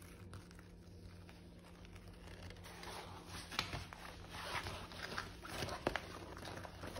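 Thin cover sheet being peeled back off a freshly heat-pressed shirt: a run of irregular rustles and crackles from about halfway through, with a couple of sharper snaps.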